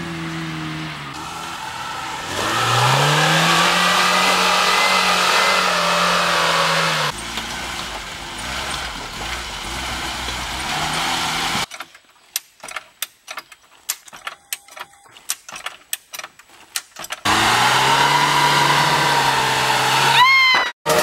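Lada Niva 4x4 engines revving hard in several short off-road clips, the engine note climbing and falling as the wheels spin in mud. About halfway there is a stretch of scattered sharp clicks and knocks over near-quiet, then engine revving again.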